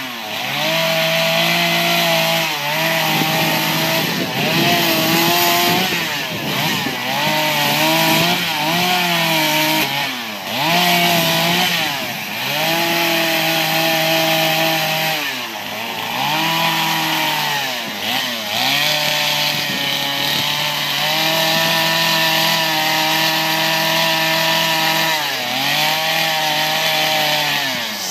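Two-stroke chainsaw running hard as it cuts into a wooden stump, its engine pitch dipping and climbing back every few seconds as the throttle is eased and opened between cuts.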